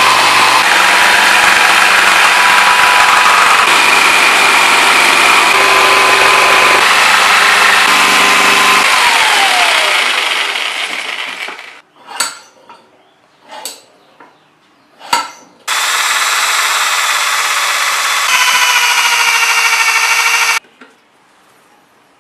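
Motor of a homemade kwaci-husking machine running with a loud, steady grinding rattle, then winding down with a falling whine about nine seconds in. A few sharp knocks follow, then it runs again for about five seconds and cuts off suddenly.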